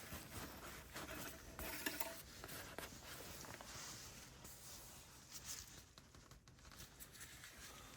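Faint rustling and a few light clicks as the engine oil dipstick is handled, pulled and wiped to check the oil level.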